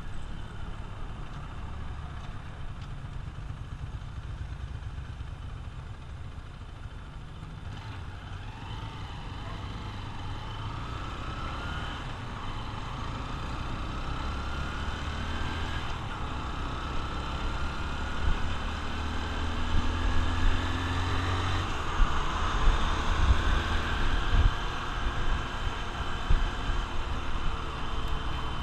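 Honda XR150L's single-cylinder four-stroke engine under way, its pitch climbing in several successive rises from about eight seconds in and growing louder.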